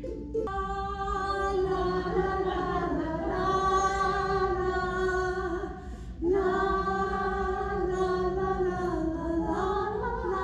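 A woman singing two long held notes unaccompanied, the second starting about six seconds in.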